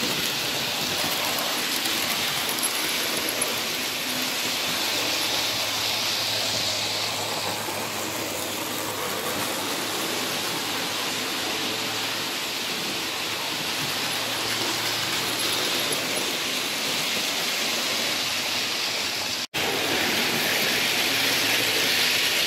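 00 gauge model trains running on the layout: a steady whirring hiss of small electric locomotive motors and metal wheels on the rails, with a brief sudden dropout about three-quarters of the way through.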